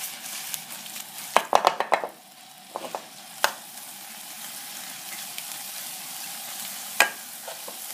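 Minced pork with chillies and onion sizzling in a frying pan while a metal spatula stirs and scrapes it. The spatula knocks against the pan a few times in quick succession about one and a half seconds in, and then once or twice more.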